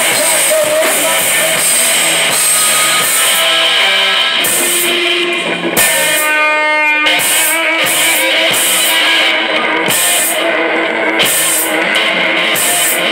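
Live rock band playing loud: electric guitars, bass guitar and drum kit. About six seconds in the drums drop out briefly while a single held note rings, then the band comes back in.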